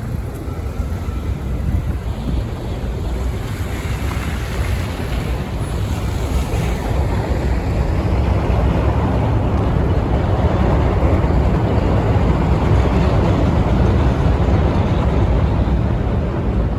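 Blizzard wind buffeting the microphone: a loud, steady low rumble and rush that grows a little louder partway through.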